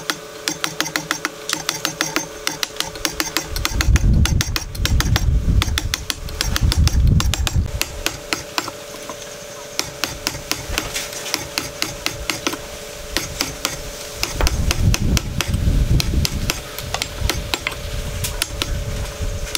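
Wood chisel cutting into a solid wooden post: a rapid run of sharp taps, several a second, over a steady hum, with a low rumble in two stretches.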